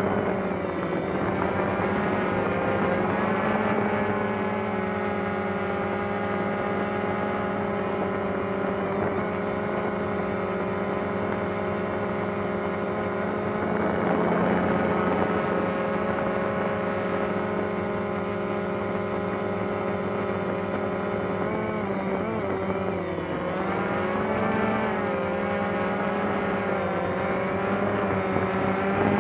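DJI Phantom quadcopter's motors and propellers whirring steadily in a hover, heard from the camera on board. The pitch wavers and dips briefly about three quarters of the way through as the motors adjust.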